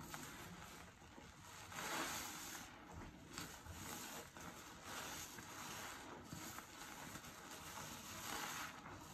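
A sponge loaded with thick soap suds being squeezed and kneaded by hand in a foam-filled sink: wet squelching, which swells with each of several squeezes.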